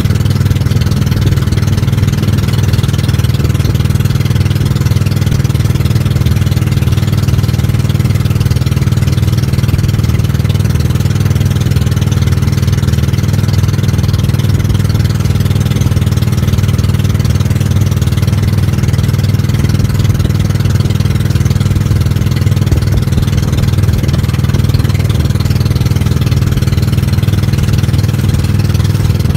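Small fishing boat's engine running loudly and steadily at an even speed.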